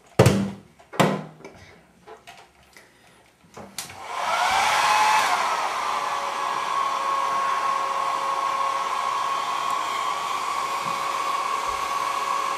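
Two loud knocks and a few lighter clicks, then about four seconds in a handheld hair dryer switches on: its motor spins up in a rising whine and settles into a steady whir, run on its low setting.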